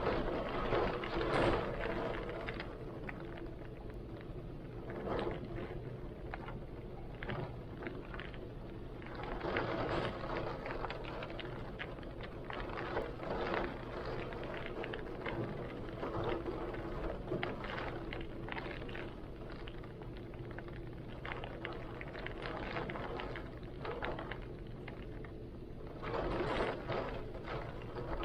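Heavy rain with strong gusting wind, a dense rushing noise that swells louder several times, most strongly near the end.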